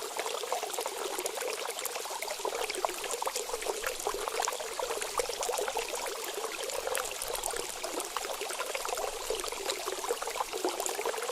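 Steady trickle of running water, with many small splashes and bubbles.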